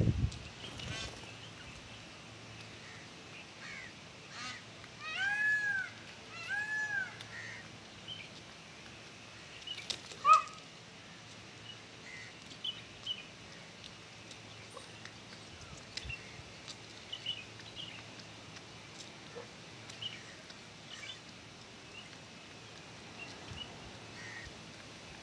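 Indian peafowl calling while feeding: two arched, honk-like notes between five and seven seconds in, then one louder, sharp call about ten seconds in. Faint chirps are scattered throughout.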